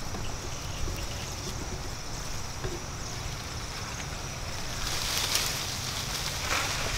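Outdoor ambience: a low steady rumble with a faint steady high tone, and a brief louder hiss about five seconds in.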